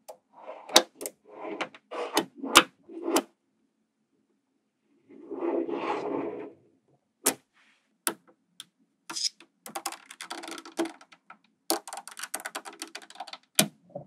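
Small magnetic balls clicking as they snap together under the fingers, with a longer rattle of balls about five seconds in and a run of quick small clicks and rattling near the end.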